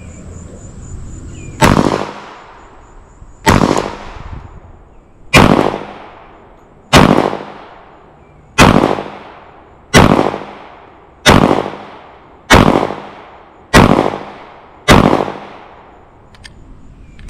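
Glock 30 compact .45 ACP pistol fired ten times in deliberate single shots, each with a decaying echo. The shots come about two seconds apart at first and speed up to a little over a second apart near the end.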